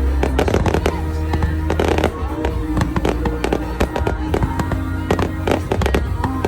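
Fireworks going off in rapid succession, many sharp cracks and pops close together, over loud music with a heavy low bass.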